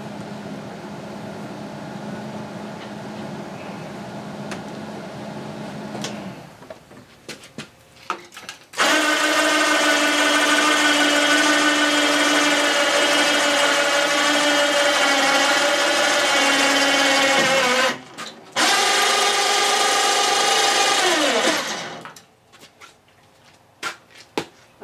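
A steady low hum, then a few clicks. An electric motor then starts and runs with a loud, steady whine for about nine seconds, its pitch stepping slightly as the load changes. It stops for a moment, runs again for about three seconds and winds down with a falling pitch.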